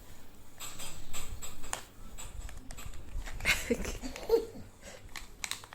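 Scattered clicks and rustling from small objects being handled, with a few short vocal sounds from a young child partway through.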